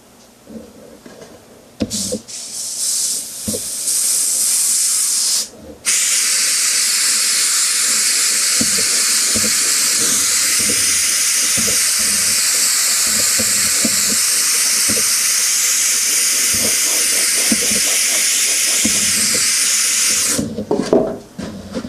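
Airbrush spraying water-based paint: compressed air hissing through the gun. It starts in short bursts about two seconds in, breaks off briefly, then holds steady for about fifteen seconds and cuts off near the end.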